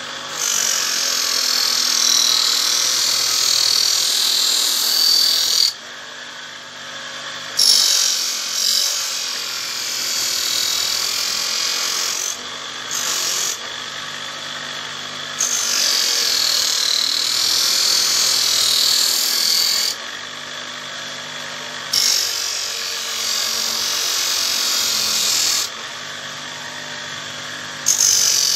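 Small electric motor of a simple homemade knife-sharpening machine running steadily, with a blade pressed against the abrasive in passes of several seconds; the loud high grinding hiss drops out in short gaps when the blade is lifted away.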